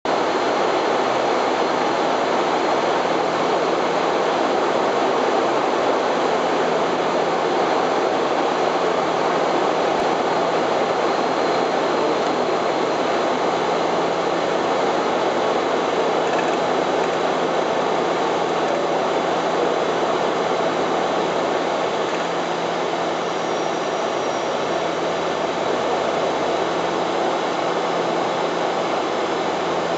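Steady in-flight cockpit noise of a Bombardier Dash 8-400 (Q400): the drone of its Pratt & Whitney PW150A turboprops and propellers mixed with airflow rush. It is an even, unchanging rushing noise with a low steady hum underneath.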